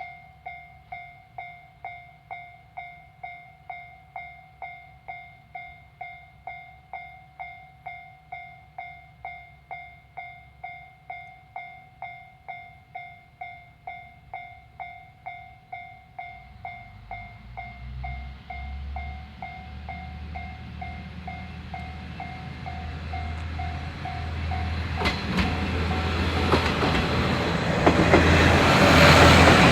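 Japanese level-crossing alarm dinging about twice a second. Over the last dozen seconds a diesel train approaches, its low engine rumble and wheel noise swelling and drowning the bell, loudest at the very end with some clattering over the rails.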